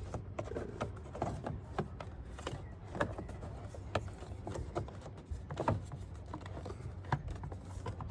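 Scattered, irregular clicks and knocks of plastic intake parts (airbox and intake tube) being handled and fitted, over a steady low hum.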